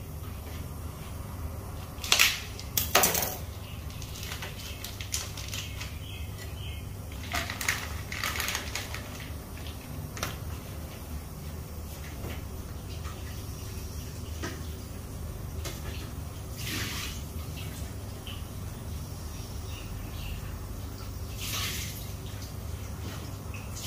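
Dishes and cutlery clinking and knocking at a kitchen sink while a plate is washed under running tap water, with a few sharp clatters over a steady low hum.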